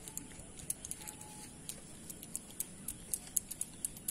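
Open-air ambience: a steady high-pitched hiss with irregular sharp ticks, several a second.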